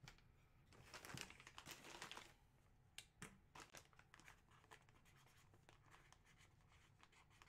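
Faint crinkling of a clear plastic bag holding a jersey as it is handled and slid across a desk, with a few light clicks about three seconds in.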